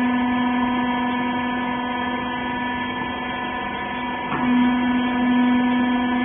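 Hydraulic clothes baler's electric pump unit running with a steady hum, with a brief knock about four seconds in.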